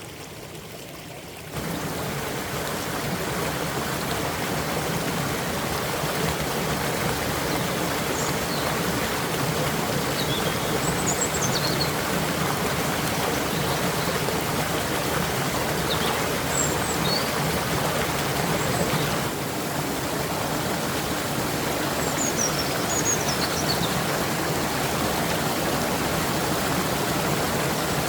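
Stream water rushing steadily, stepping up in loudness about a second and a half in, with a few short high chirps now and then.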